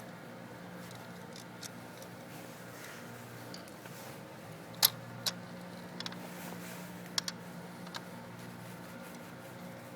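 Small sharp clicks and taps of parts being handled while a motorcycle starter relay is taken apart: about six clicks in the second half, the loudest about halfway through, over a steady low hum.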